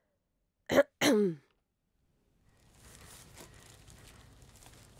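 A person coughs once sharply, then clears their throat with a short voiced grunt that falls in pitch. After a brief silence, a faint outdoor background with a few light clicks comes in.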